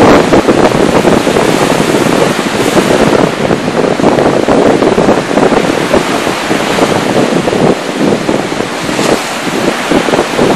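Rough sea surf breaking and washing up a sandy beach in strong wind, with the wind buffeting the microphone in gusts.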